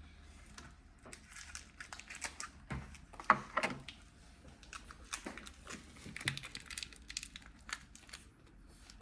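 Packaging rustling and crinkling as computer parts and screws are handled, with scattered small clicks and knocks; the loudest crackle comes about three seconds in.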